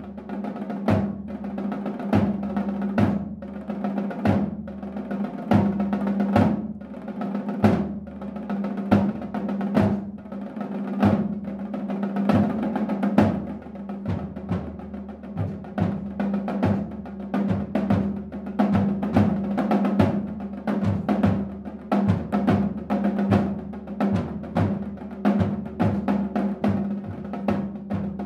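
Two snare drums played together in a percussion piece: fast rolls and runs of stick strokes, broken by sharp accented hits, with the drums' steady ringing tone under the strokes.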